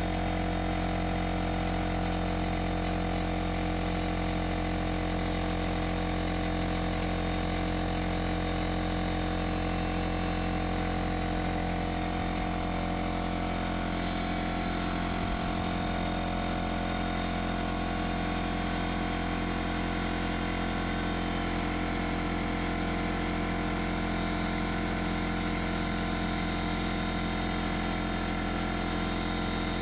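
Porter Cable 6-gallon pancake air compressor running steadily, its motor and pump building pressure in the tank.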